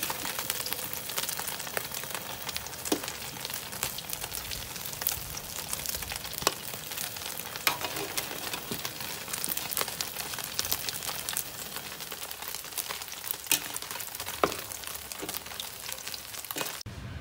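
Small whole stream fish frying in hot oil in a steel wok: a steady sizzle with many sharp crackling pops, the fish stirred now and then with a metal spatula. The sizzle cuts off abruptly near the end.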